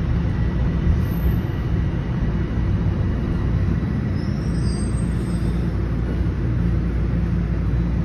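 Inside a TTC Toronto Rocket subway car: a steady low rumble as the train runs along the platform, pulling into a station.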